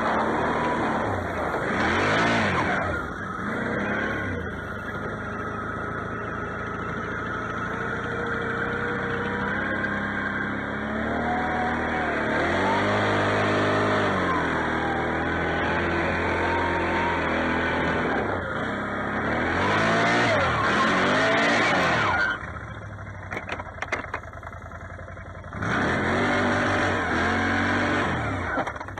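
Can-Am Outlander X mr 650 ATV's V-twin engine revving up and down again and again as it ploughs through deep snow, its pitch rising and falling in several waves. About three quarters of the way through it eases off and runs quieter for a few seconds, then revs up again.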